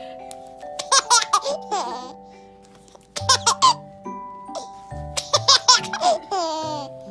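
An eight-month-old baby laughing in three bouts of quick, high giggles, over background music.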